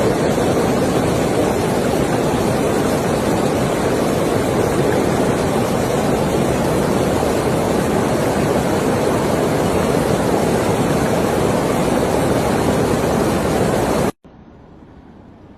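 Steady loud rush of water surging up out of the ground after heavy rain. It cuts off abruptly about fourteen seconds in, leaving a much quieter hiss.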